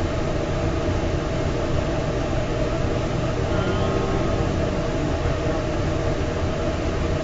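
Food trailer's kitchen machinery running with a steady hum and a low rumble.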